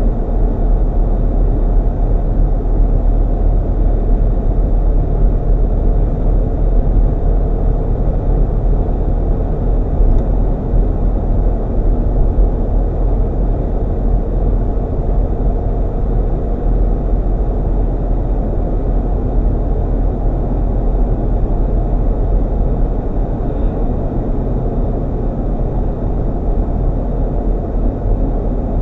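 Steady low road and engine rumble of a GMC Yukon driving at an even speed.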